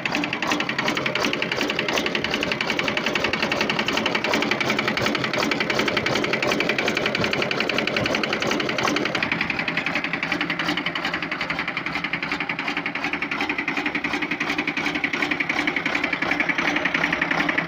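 Volvo TWD121 six-cylinder diesel engine running with a rapid, steady, loud clattering knock. The uploader traced the knock to a broken exhaust valve whose fragments were being struck by the piston.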